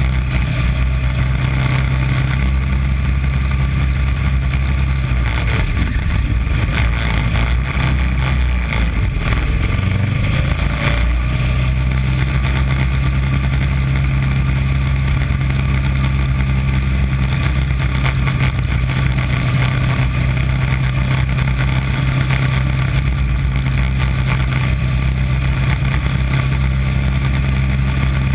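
Mini Corvette race car's small engine running hard, heard close up from the car's own body, a steady drone whose note breaks and shifts for a couple of seconds about nine seconds in before settling back.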